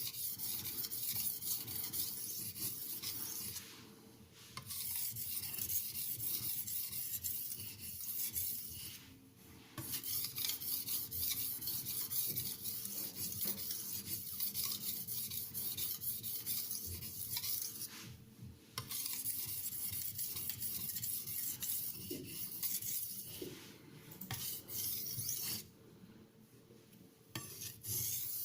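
Steel knife blade being stroked back and forth on a Haidu HCJ-S 6000-grit (FEPA 1500) aluminium oxide whetstone, a continuous rasping scrape that stops briefly four times.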